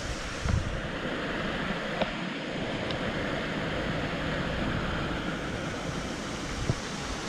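Steady hiss of rain falling on leaves and undergrowth, with a few faint ticks.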